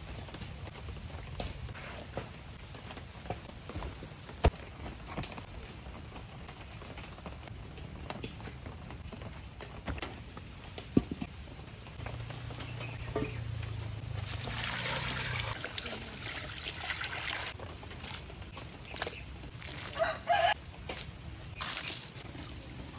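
A rooster crowing in the background while water is poured into a large metal wok and salt is sprinkled in near the end, with a few sharp knocks from handling.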